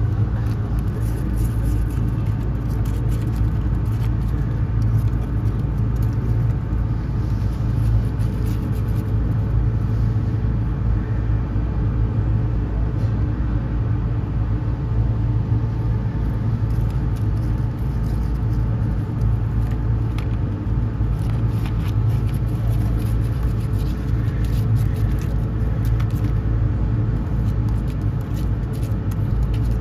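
A steady low rumble, like a motor running nearby, with faint scattered scratching and rustling of kittens playing on cardboard.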